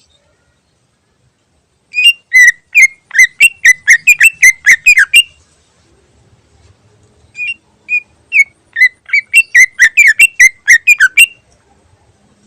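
Greater green leafbird (cucak ijo) singing in two bouts of rapid, repeated sharp notes, about three or four a second. The first bout starts about two seconds in and lasts about three seconds. The second begins with a few spaced notes, then speeds up and stops near the end.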